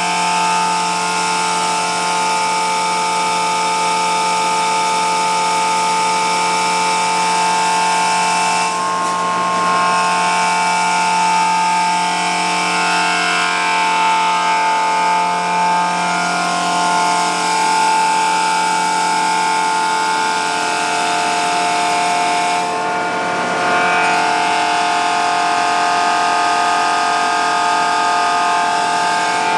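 Mobile feed mill truck running steadily as it sucks up corn through its vacuum hose, a constant mechanical roar with a steady high whine over it.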